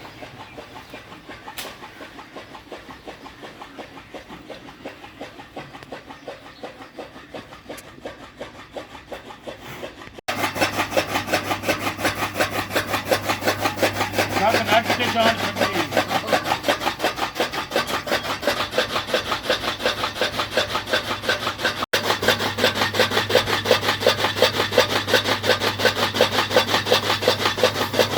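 Rapid, even rasping strokes of cutting, like sawing. About ten seconds in it becomes suddenly louder, with a steady low hum underneath.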